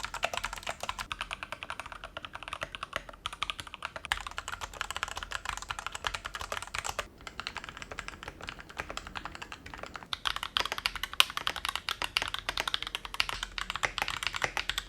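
Fast, continuous typing on a Rexus Daiva budget mechanical keyboard: dense key clacks, with brief pauses about 3 and 7 seconds in.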